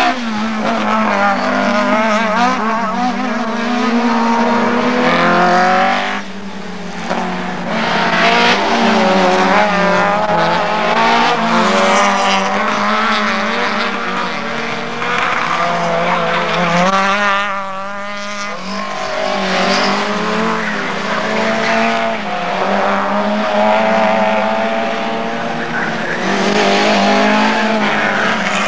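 Several racing saloon cars' engines revving hard, their pitch rising and falling as they accelerate, brake and shift through the gears on the circuit.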